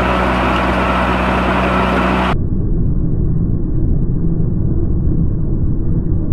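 Drilling rig running steadily, its engine hum under the noise of the turning drill rod. A little over two seconds in, the sound abruptly turns into a dull, muffled low rumble as the recording drops into slow motion.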